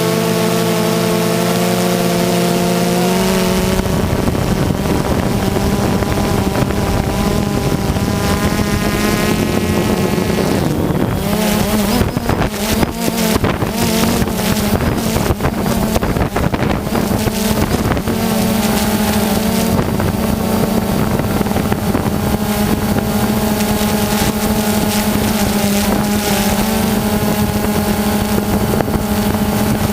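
Small high-revving model engine running steadily, its pitch climbing as it is throttled up about a third of the way in. Wind buffets the microphone for a few seconds in the middle.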